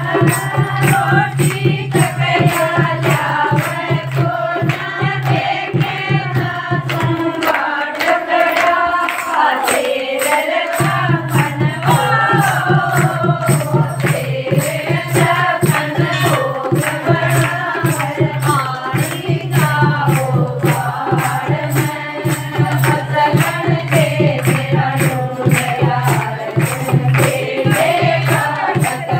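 Hindi devotional bhajan to Shiva, sung by women's voices together over a steady beat of hand-clapping and percussion. The low accompaniment drops out for a few seconds midway, then comes back in.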